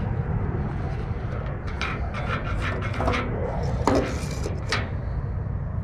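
Wind buffeting the microphone as a steady low rumble, with a run of short scraping and tapping handling sounds from about two to five seconds in as braided fishing line is fed through a rod's guides on a tabletop.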